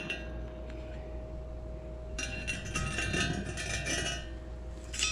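Light metallic clinking and ringing of steel being handled, strongest from about two seconds in, over a steady low hum.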